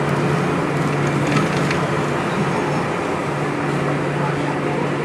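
Preserved vintage tram running at a steady speed, heard from inside the car: a continuous rolling noise of wheels on rail with a low steady motor hum, and a few light clicks about a second and a half in.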